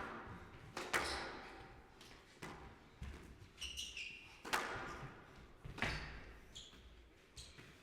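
Squash ball struck by rackets and smacking off the court walls: about five sharp hits with an echo, with short shoe squeaks on the court floor about halfway through.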